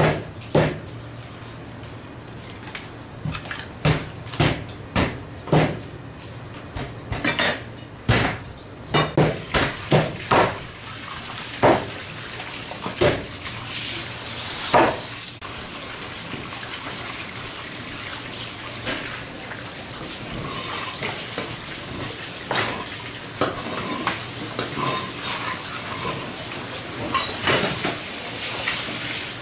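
Fish-cutting knife knocking and clattering against a plastic cutting board and stainless-steel counter while a large fish is butchered: irregular sharp knocks and metallic clinks over a steady low hum.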